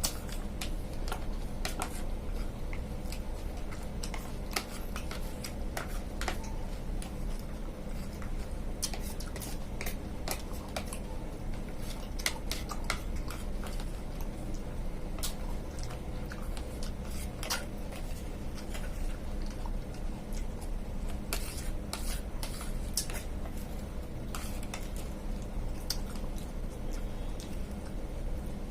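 Eating utensil clinking and scraping against a dish in irregular sharp clicks while a bowl of mixed fruit and sabudana is eaten, over a steady low hum.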